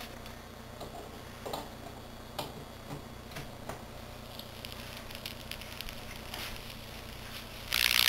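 Hot dog being cooked by 110-volt mains current through wires in each end: scattered crackles at first, thickening into a loud, dense sizzle near the end. It is the sound of moisture in the hot dog boiling and the meat cooking.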